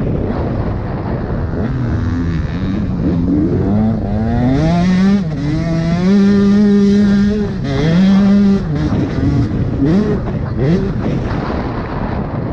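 Motocross bike engine revving hard, its pitch climbing and dropping several times as it accelerates and shifts, held steady and loudest in the middle before falling away near the end.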